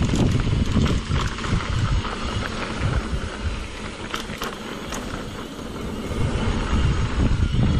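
Wind buffeting the microphone, with tyre noise and scattered clicks and rattles from a mountain bike riding a dirt downhill trail. It eases off briefly in the middle.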